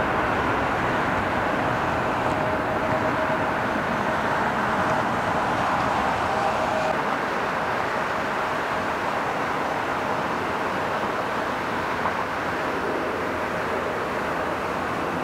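Airliner jet engines running: a steady rush with a faint whine from a twin-engine widebody rolling down the runway. About seven seconds in it eases slightly into the steady run of a taxiing Embraer regional jet.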